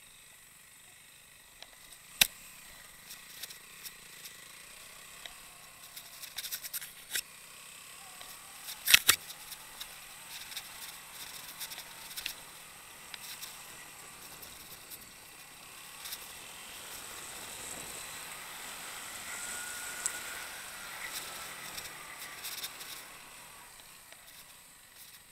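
Motorcycle engine running faintly at low speed on a rough dirt track, with sharp knocks and rattles, the loudest about two seconds in and about nine seconds in. The running noise swells for a few seconds near the end.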